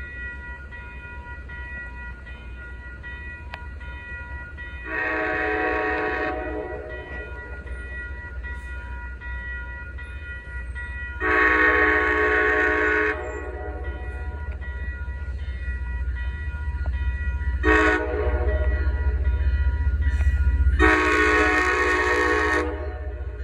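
Diesel locomotive horn on an MBTA HSP46 sounding the grade-crossing signal: two long blasts, a short one, and a final long one, warning of the crossing ahead. A crossing bell rings steadily underneath while the locomotive's low rumble grows as it approaches.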